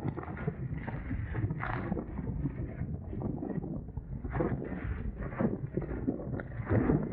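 Wind buffeting the microphone while water splashes and slaps against the hulls of a Dart 18 catamaran under sail, with several irregular louder slaps.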